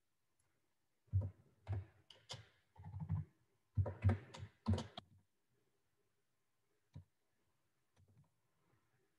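Typing on a computer keyboard: a password tapped out in quick clusters of keystrokes, followed about two seconds later by a single click and a few soft taps.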